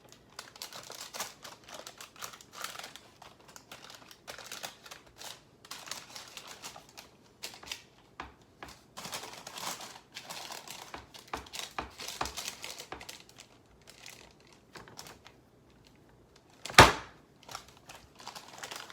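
A spoon pressing and scraping crumbly lemon-bar crust into a parchment-lined glass baking pan: a steady run of small taps, scrapes and parchment crinkling, with one sharp knock near the end.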